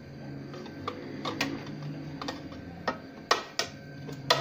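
Pizza cutter pressed and rolled through pizza crust, clicking and tapping against the plate beneath in a string of sharp clicks, the loudest in the last second or so.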